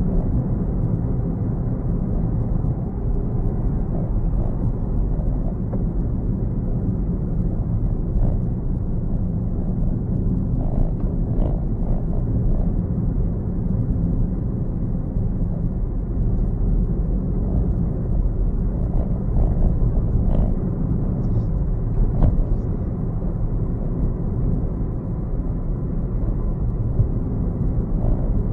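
Steady low rumble of a car's engine and tyres on the road, heard from inside the cabin, with a few faint ticks and knocks around the middle.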